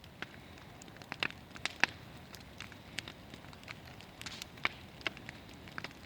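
Bonfire crackling, with irregular sharp pops over a steady low hiss.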